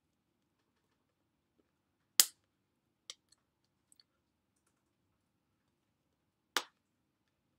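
Two sharp hand slaps about four seconds apart, the first the louder, with a few faint clicks between them.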